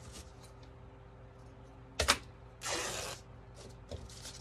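Fabric scraps being handled: a sharp click about two seconds in, then a brief rustle lasting about half a second, with a few faint handling clicks around them.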